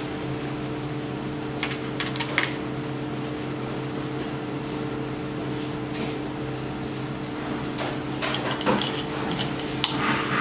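A steady machine hum of several level tones runs throughout. From about 8 seconds in come a run of light clicks and knocks as the compression gauge is taken out of the spark-plug hole.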